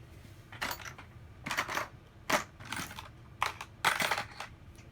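Short clicks and clatters of small hard objects, in about six separate bursts: a phone and small repair tools being handled and set down on a work surface.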